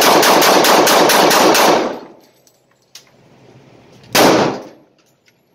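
Smith & Wesson CS45 compact .45 ACP pistol fired in a rapid magazine dump, a fast string of shots lasting about two seconds. The shots echo heavily off the indoor range walls. One more single shot follows about four seconds in.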